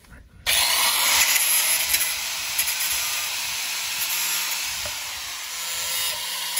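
Corded angle grinder switched on about half a second in, its disc grinding down the end of a 1.5-inch PVC pipe clamped in a vise: a loud, steady, hissing grind.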